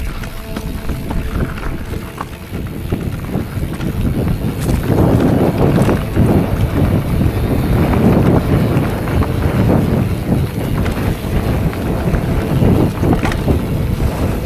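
Wind buffeting the microphone of a mountain bike's ride-along camera, with the bike knocking and rattling over rough trail ground; it grows louder about four to five seconds in.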